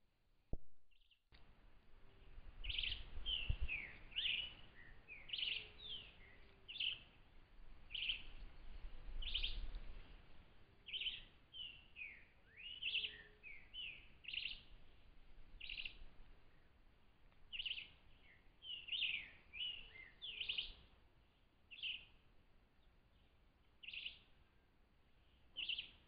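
Several birds chirping, with short high calls that slide up or down in pitch, coming every half second to a second. A fainter low call repeats now and then underneath, and there are a couple of low rumbles in the first ten seconds.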